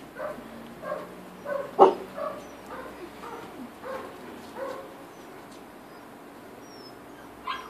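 Small black puppy yapping in short, high yips about every half second during rough play, easing off after about five seconds. One sharp, much louder crack about two seconds in.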